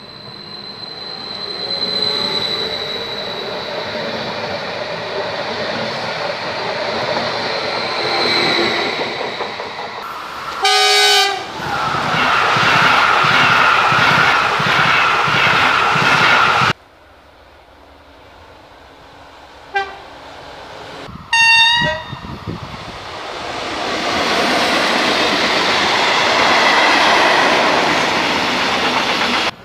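Several trains passing one after another. A Westfalenbahn electric multiple unit comes in with a rising rush and a high whine. A single Makrofon horn blast about a third of the way in is followed by Intercity coaches rushing past with a steady squeal. Later come two short horn toots, then a freight train of open wagons rumbling past.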